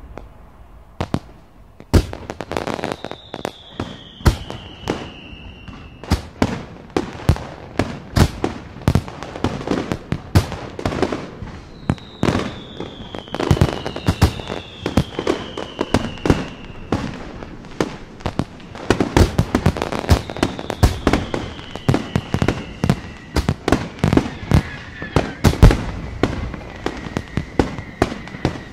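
Fireworks going off: a dense, irregular run of sharp bangs and crackles, with several long whistles that slide down in pitch.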